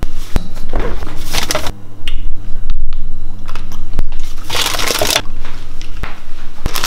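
Close rustling and crinkling of a paper bag and the plastic bag of grapes inside it being handled, in bursts about a second in, around five seconds and near the end, with sharp clicks and knocks in between.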